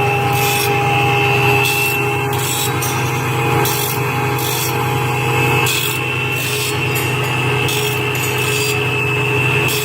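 Circular saw blade sharpening machine running just after being switched on: a steady motor hum with a few constant tones. Over it come short rasping hisses that repeat roughly every half second to a second.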